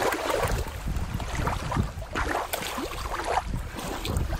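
Shallow water lapping and rippling against a rock, with a few small splashes and a steady low rumble of wind on the microphone.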